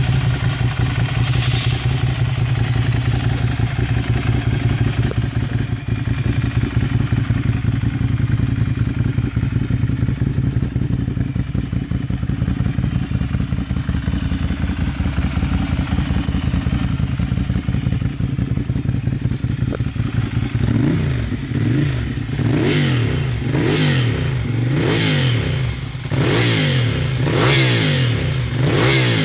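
Ducati Monster 796 air-cooled L-twin running loud through a conical HF1 sport exhaust. It idles steadily, then about twenty seconds in the throttle is blipped repeatedly, the revs rising and falling about once a second.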